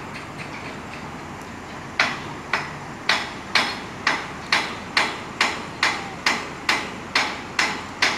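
Hammer blows on steel bridge truss members, a steady run of sharp ringing strikes about two a second, beginning about two seconds in after some faint light ticking.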